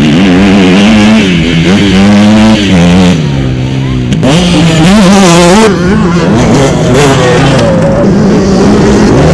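Motocross dirt bike engine revving hard, its pitch climbing and dropping over and over as the rider works the throttle through the gears.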